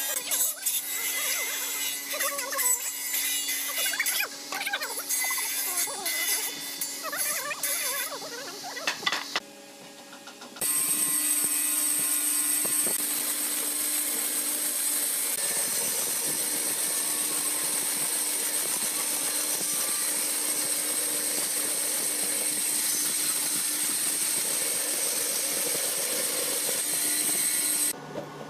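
Power saws cutting hardwood. For the first nine seconds or so a table-mounted circular saw cuts a tenon in a beam, uneven as the wood is fed into the blade. After a short drop, a band saw runs steadily through a thick curved timber.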